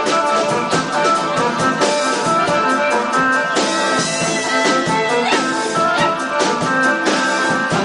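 Live Assyrian dance music from a band: loud sustained melody notes over a steady drum beat.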